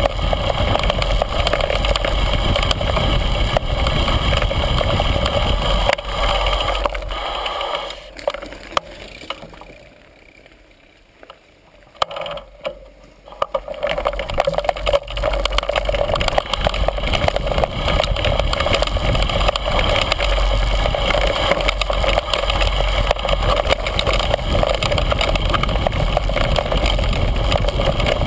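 Mountain bike riding down a rough, stony forest trail: steady wind rush on the microphone with the rattle and scrape of the bike and tyres over stones and leaves. It goes much quieter for a few seconds around the middle, with a couple of short clatters, then picks up again.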